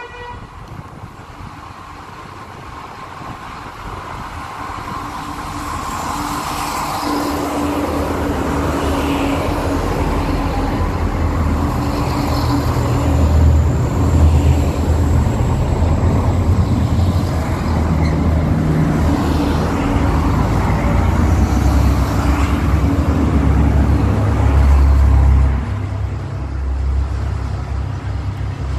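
A diesel-hauled freight train passing close by: the locomotive's engine grows steadily louder as it approaches, then a heavy low rumble of wheels on rail as the wagons roll past. There is a faint high whine in the middle, and the sound drops a step about 25 seconds in.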